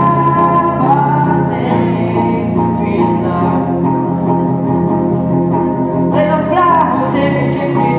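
Music: a song with plucked guitar and a voice holding long sung notes.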